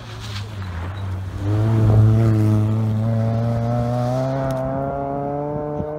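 Rally car engine under hard acceleration as it drives past, its note climbing steadily in pitch. It swells sharply about a second and a half in, is loudest around two seconds, and cuts off abruptly at the end.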